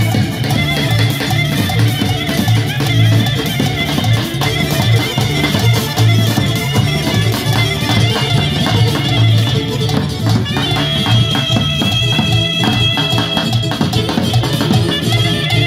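Live Balkan folk dance music: a large double-headed drum beats a steady rhythm under a high melody line. About two-thirds of the way through, the melody settles on long held high notes.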